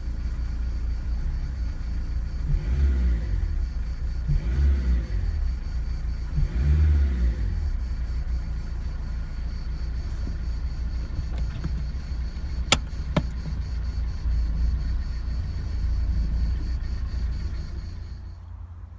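Renault Clio 2's 1.5 dCi four-cylinder diesel engine idling, heard from inside the cabin, blipped three times in quick succession early on to make the engine rock on its worn lower engine mount. Two sharp clicks come about halfway through.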